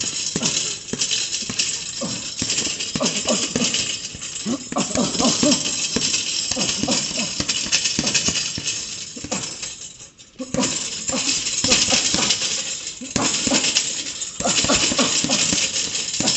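Boxing gloves striking a double-end bag in rapid combinations, the bag snapping back and forth on its elastic cords, with the boxer's voiced exhales between punches. The punching briefly stops about ten seconds in, then resumes.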